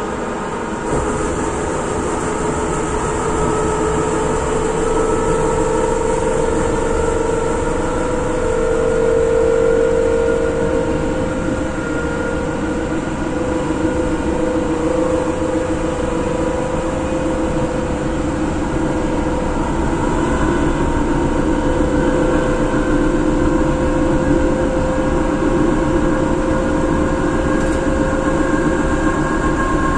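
EN57 electric multiple unit's motor car running at speed, heard from inside the passenger compartment: a steady whine of traction motors and gearing, with several held tones that edge up slightly in pitch at first, over the rumble of wheels on rail.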